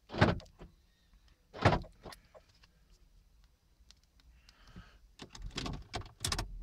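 Car central door locking clunking as a newly programmed remote key is tested: two sharp clunks about a second and a half apart, then a quick run of clunks and rattles near the end.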